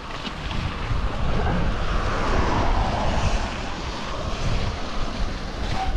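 Wind rushing over a GoPro's microphone while a mountain bike is ridden over a wet trail, a steady whooshing rumble that swells about a second in.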